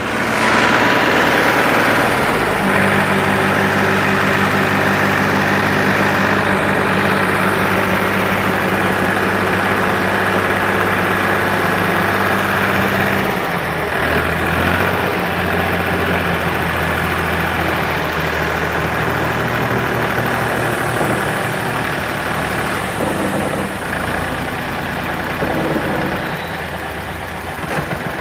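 Tractor diesel engine running steadily while its hydraulics raise a loaded tipping trolley. The engine note drops to a lower pitch about halfway through and grows quieter near the end.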